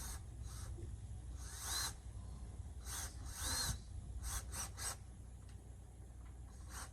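Cordless drill driving a screw into a mounting bracket in several short trigger pulses, the motor briefly spinning up and down each time.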